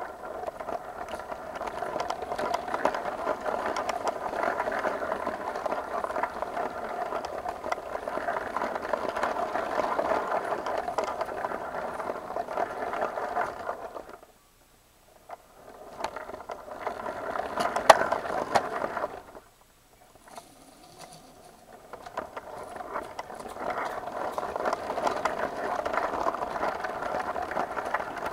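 Lego train running along plastic track: a steady whirring rattle from its small electric motor and wheels, with scattered clicks. It drops away twice for about a second around the middle.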